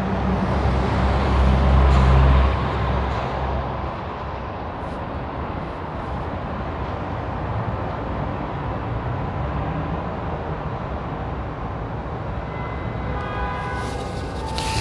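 Express coach bus engine rumbling loudly for the first few seconds, then fading into steady street traffic noise. A brief pitched tone sounds near the end.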